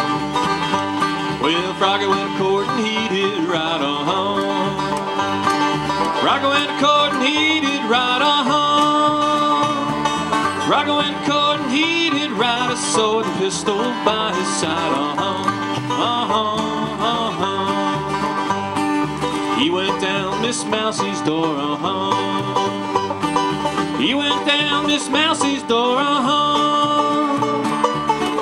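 Live acoustic bluegrass trio playing: five-string banjo picking over strummed acoustic guitar and a plucked upright bass keeping a steady beat.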